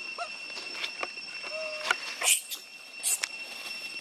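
Young long-tailed macaques giving short squeaky calls that slide in pitch, with two brief harsh high-pitched bursts about two and three seconds in, over a steady high drone.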